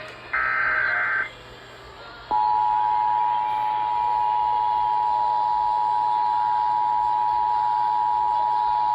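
Emergency Alert System broadcast signals: a harsh, buzzy digital data burst lasting about a second, the SAME header that encodes the alert, then about two seconds in the steady two-tone EAS attention signal starts and holds without change. Together they announce an emergency alert activation, here a flash flood warning.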